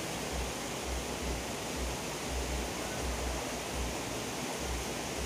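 Steady rushing of river water, with an uneven low rumble underneath.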